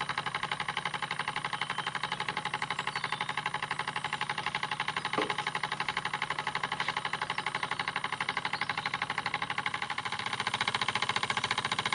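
RETROL SE-02 model steam engine running steadily under steam: a fast, even beat from its single cylinder and spinning flywheel, growing a little louder near the end.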